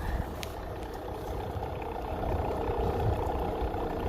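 Small solar-powered vacuum pump on a maple sap line running with a steady hum.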